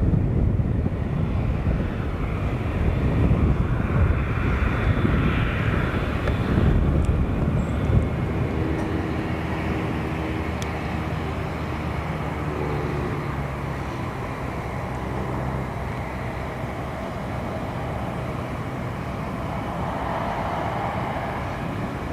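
An airplane's engine running, heard as a steady low rumble with a faint pitched drone that comes in about eight seconds in.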